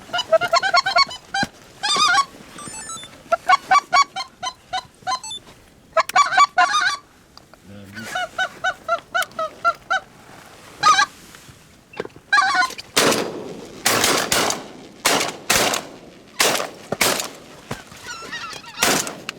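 A flock of geese honking as it comes in low, then from about two-thirds through a rapid volley of roughly eight shotgun shots from several hunters firing at the flock, with the geese still calling between the shots.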